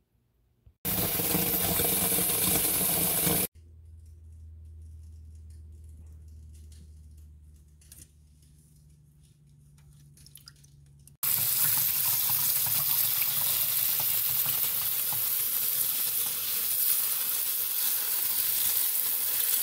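Kitchen tap water running onto sorrel in a colander in a steel sink, in two long stretches of steady splashing: a short one near the start and a longer one from about eleven seconds in. Between them is a quieter spell with a low hum and faint small splashes of sorrel being swished by hand in a bowl of water.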